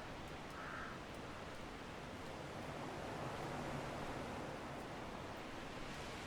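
Strong wind rushing steadily, swelling a little midway. A single short bird call sounds under a second in.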